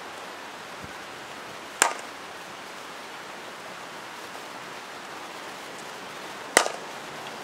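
Softball bat striking a softball twice, about five seconds apart, each hit a sharp crack with a brief ring, over a steady hiss.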